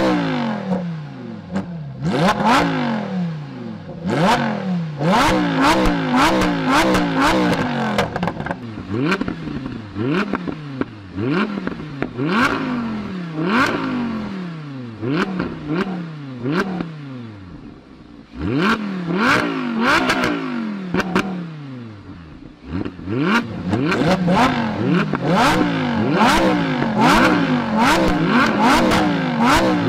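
5.2-litre V10 engines of a Lamborghini Huracán Performante and then an Audi R8 V10 Plus, revved hard through their exhausts in quick repeated rises and drops. Sharp exhaust cracks come between the revs.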